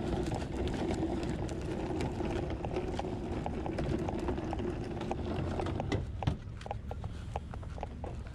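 Wheels of a cooler and a cart rolling and rattling over cracked asphalt, with footsteps. About six seconds in there is a knock, after which the rumble drops and only scattered clicks and steps remain.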